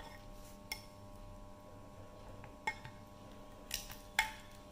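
Silicone spatula stirring a thick curd-and-spice batter in a glass bowl, with a handful of scattered light clicks and taps of the spatula against the glass.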